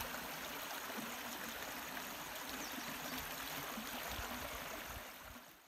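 Shallow stream running over rocks: a steady rush of flowing water that fades out at the end.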